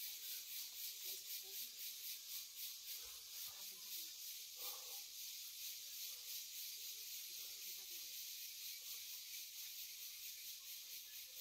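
Insect chorus in the forest: a steady high hiss that pulses evenly several times a second.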